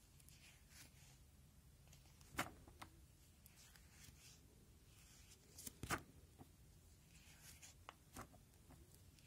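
Faint handling of binder pages in plastic sleeves: soft rustling as each page is turned, with a sharp snap each time a page flips over, three times, the loudest about six seconds in.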